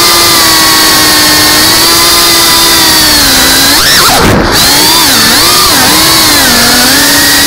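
Brushless motors and ducted propellers of a GEPRC CineLog 35 cinewhoop FPV drone whining in flight. The pitch holds steady, then dips sharply and climbs back about four seconds in, then wavers up and down with the throttle.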